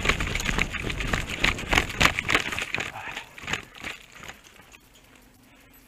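Running footsteps crunching on dry, gritty dirt, a quick uneven patter that slows and dies away about four seconds in as the runner stops.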